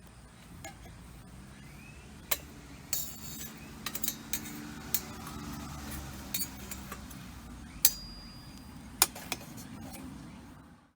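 Wood fire burning in a small steel fire-pit stove: irregular sharp crackles and pops over a steady low rumble of flame. It fades out near the end.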